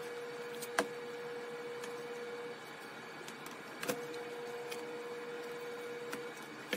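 A laptop being handled on a wooden table: a sharp knock just under a second in, another a little before four seconds, and a cluster of clicks near the end as small tools are picked from a plastic case. Under it runs a steady faint hum that weakens about halfway through.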